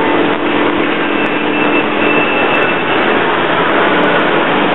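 Industrial machinery running at a loud, steady level: a constant noise with a steady hum underneath.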